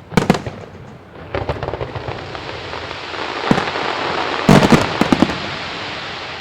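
Fireworks display: aerial shells bursting with sharp bangs over a dense crackling wash that builds through the middle. The loudest cluster of bangs comes about four and a half seconds in, then the crackle fades.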